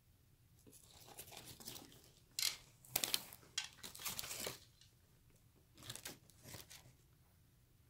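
Close-up chewing of a bite of fried chicken sandwich on a croissant bun, in irregular bursts that start about a second in, are loudest in the middle, and return twice briefly near the end.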